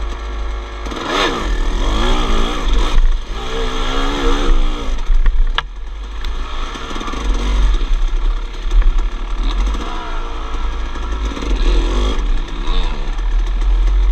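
Two-stroke 250cc dirt bike engine revving up and down over and over as the bike works along a muddy trail, with low wind rumble on the microphone. A single sharp click about five and a half seconds in.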